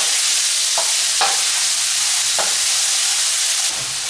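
Crushed ginger and garlic sizzling steadily in hot olive oil in a wok. A wooden spatula scrapes the pan a few times as it stirs.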